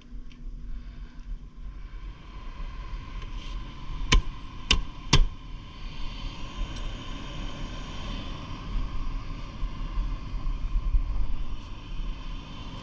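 Three sharp clicks about half a second apart, then steady running machinery with a low rumble and a rushing hiss.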